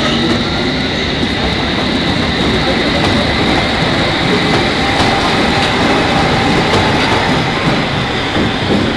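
London Underground electric train pulling out of the platform: a steady rumble of wheels on the track with a high whine from its motors.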